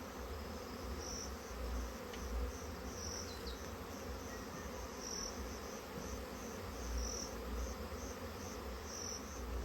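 A swarm of honeybees buzzing in a steady hum as it moves into the hive. Short high chirps repeat every second or two above it.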